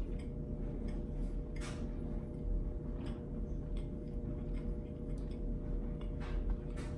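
A man chewing a mouthful of pumpkin fritter, with a few brief soft mouth and breath noises over a steady low hum.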